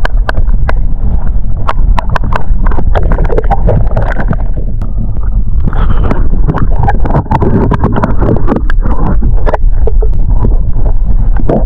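Loud, muffled water rumble and sloshing heard through an action camera's waterproof housing held in the water, with frequent irregular sharp clicks and knocks against the housing.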